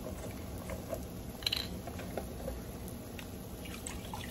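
Brown gravy mix and onions cooking in oil in a hot cast-iron skillet: a low steady sizzle with scattered small pops and crackles, and a brief high ping about one and a half seconds in.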